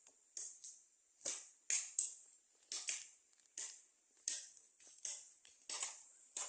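Footsteps crunching through dry leaves and grass, one crisp step about every three-quarters of a second.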